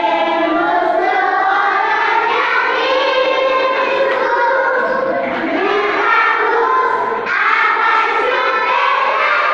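A group of young children singing a song together, with long held notes.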